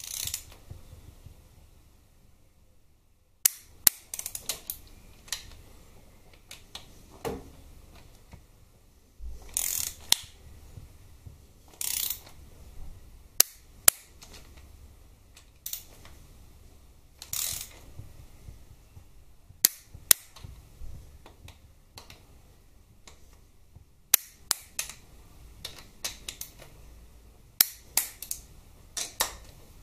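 Socket ratchet clicking in short runs on the bolts of a Harley-Davidson transmission clutch release cover as they are snugged down, with sharp single metal clicks between the runs.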